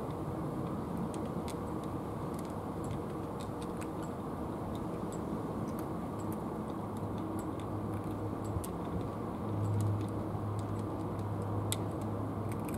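Cats eating dry food from plastic trays, small sharp crunching clicks scattered irregularly over steady background noise. A low steady hum comes in about seven seconds in and grows stronger a couple of seconds later.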